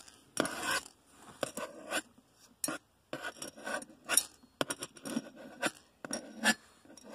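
A table knife pushes small round plastic Lego pieces across a plastic tray, one or a few at a time, as they are counted off. It makes about a dozen short, irregular scrapes and clicks.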